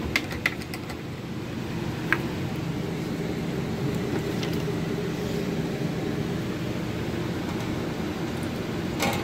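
A steady low mechanical hum from a running motor or appliance, with a few light clicks and clinks of a bottle and glass being handled.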